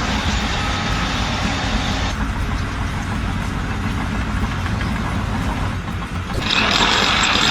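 A heavy truck's engine running with a steady low rumble. About six and a half seconds in, a louder hissing, rushing noise sets in over it.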